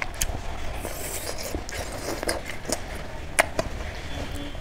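A person eating close to the microphone: chewing, with a few sharp irregular clicks and smacks.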